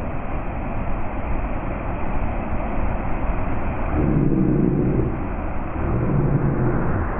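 Steady, muffled rushing noise with no high end, swelling into a low rumble about four seconds in and again near the end.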